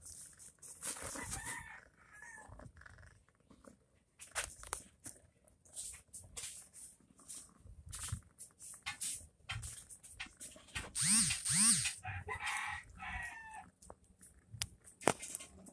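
Kittens wrestling on a woven mat: scattered light scratches and taps, with a loud two-note animal call about eleven seconds in.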